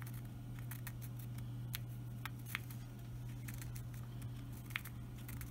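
Faint scratches and small ticks of a pencil tracing around the edge of a plastic template held against a metal lens adapter, over a steady low hum.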